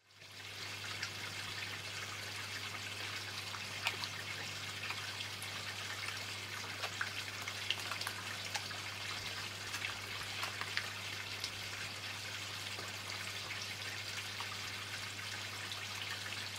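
Koi feeding at the surface of a pond: scattered small splashes and slurps over a steady trickle of water, with a low steady hum underneath.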